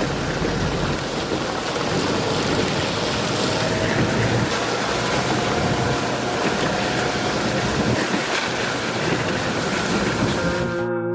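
Steady rushing noise inside a moving vehicle: road, engine and rain noise together. It cuts off abruptly right at the end as guitar music begins.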